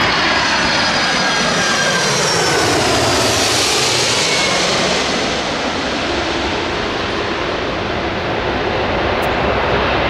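Boeing 747 approaching low overhead: loud, steady jet engine noise with high fan whines sliding down in pitch.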